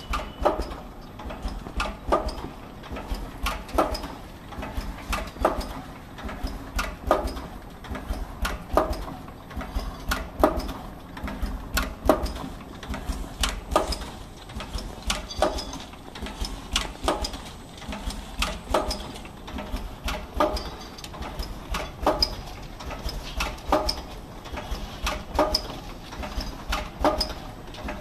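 Bag-in-bag dip tea bag packing machine running: regular mechanical clacking, with a sharper knock about every second and a half to two seconds and lighter clicks between, over a steady low machine hum.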